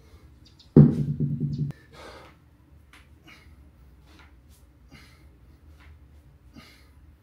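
A man's short, sharp breaths in rhythm with heavy kettlebell swings, repeating about once a second. Near the start, a loud low sound lasting about a second cuts off abruptly.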